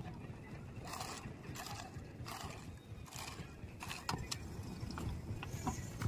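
Wet concrete being worked by hand: boots and shovels sloshing and scraping through the wet mix in irregular splashes, about one a second, over a steady low rumble.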